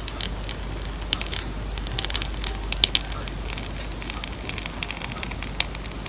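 Fine, irregular crackling as a thin dried lace sheet is peeled off a silicone lace mat, over a low steady hum.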